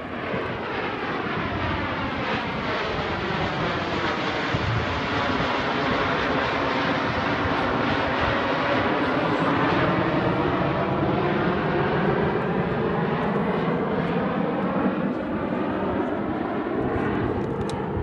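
Formation of four Canadair CT-114 Tutor jets, each with a single turbojet, passing overhead in a steady rushing roar that grows louder toward the middle. A phasing whoosh sweeps down in pitch and back up as they go by.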